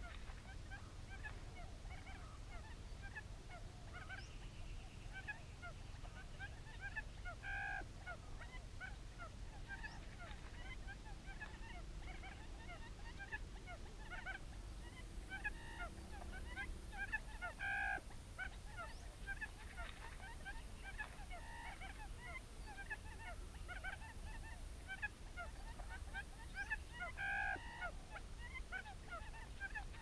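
Recorded quail call played from a speaker as a lure, a louder call repeating about every ten seconds over a constant scatter of short chirps. A steady high hiss joins about halfway through.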